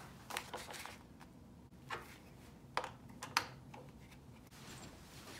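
A handful of light, irregular clicks and taps from an aluminum ice-auger adapter being handled, fitted and tightened into a drill plate.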